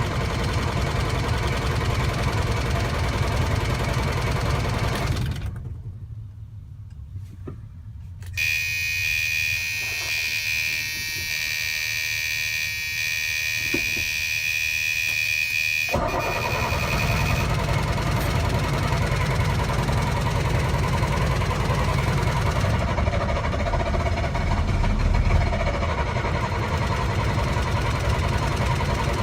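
1999 Freightliner diesel truck engine running, then stopping about five seconds in; after a short lull a steady high-pitched dashboard warning buzzer sounds for several seconds with the engine off, then the engine starts again and runs steadily. The stalls and restarts are symptoms of a bad fuel pressure sensor.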